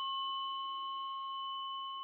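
A struck tuning fork ringing with a clear, steady tone and high overtones, slowly fading.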